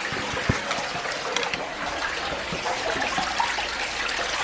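Water in a tunnel: a steady rush of water with scattered small splashes and clicks.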